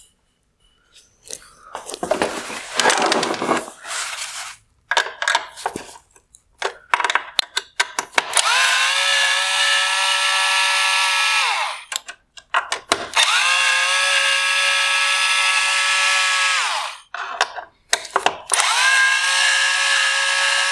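Power screwdriver backing out T20 Torx screws from a headlight housing: three runs of a steady motor whine, each a few seconds long. Each run winds up at the start and winds down at the end, beginning about eight seconds in. Before that come scattered clicks and rattles of parts being handled.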